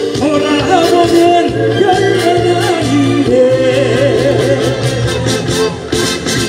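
Upbeat Korean trot music with a steady dance beat and a melody line, played loud over a PA system.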